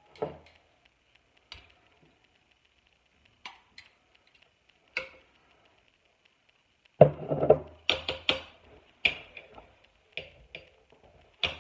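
A serving utensil knocking and scraping against the crock pot and a dish while chicken is dished out. A few scattered clicks come first, then a quicker run of louder knocks from about seven seconds in.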